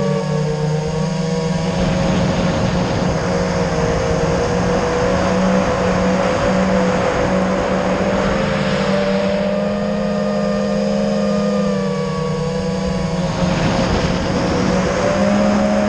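Electric motors and 5-inch propellers of an FPV racing quadcopter, heard from its onboard camera: a steady multi-tone whine that drifts up and down with throttle, with swells of rushing air during faster passes about two seconds in, in the middle, and near the end.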